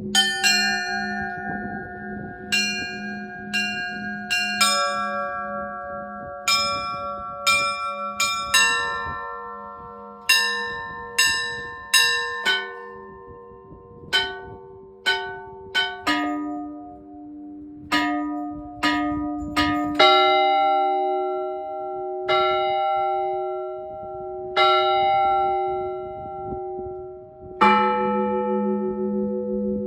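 Russian Orthodox church bells rung by hand in a festal-style zvon. Quick strikes on several small bells run over the steady tones of larger ones, then from about two-thirds in come slower, spaced strokes with long ringing tails. Near the end a deep bell is struck, and its low hum rings on.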